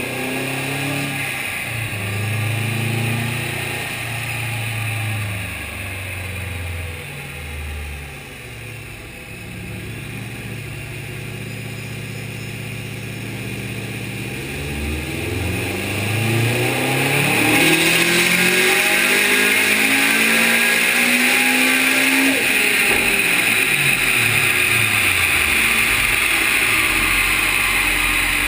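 Turbocharged flat-four of a 2005 Subaru Impreza WRX STi with a Garrett GTX3076R turbo, run on a chassis dyno. It runs at low revs through the first half, then climbs steadily in pitch and grows loud through a full-throttle pull, and about three-quarters of the way in the revs fall away as it comes off the pull.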